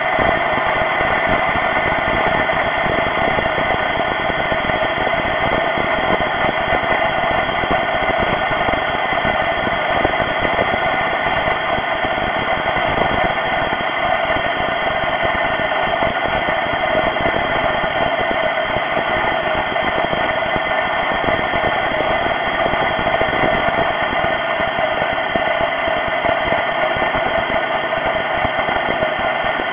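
Freshly rebuilt supercharged 3800 V6 of a Pontiac Grand Prix GTP running steadily on its first run, with a steady high-pitched whine over the engine noise.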